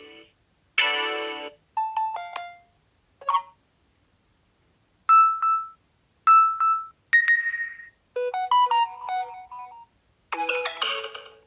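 Samsung Galaxy A20e notification tones previewed one after another through the phone's speaker: a string of short, different chimes and little note runs, each lasting about a second, with brief gaps between them.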